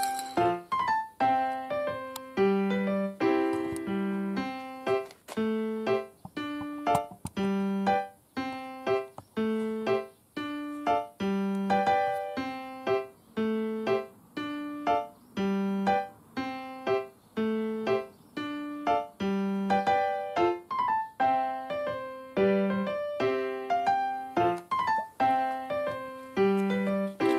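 Background music: a keyboard melody of struck notes with a recurring low bass note every second or two.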